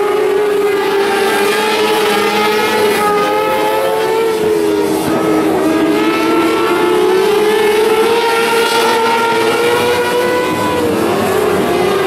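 600cc micro sprint cars racing on a dirt oval, their motorcycle-derived engines running at high revs in a continuous drone. The pitch falls and climbs again twice, about five seconds in and near the end, as the cars lift off and get back on the throttle.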